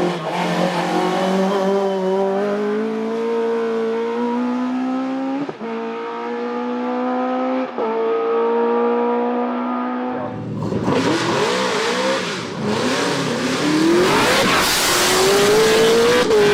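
Opel Kadett C race car engine accelerating hard at full throttle, its pitch climbing steadily with two quick gear-change breaks about five and a half and seven and a half seconds in. About ten seconds in the sound turns louder and rougher, the engine note swinging up and down over a loud rushing noise, before a steady climbing note returns near the end.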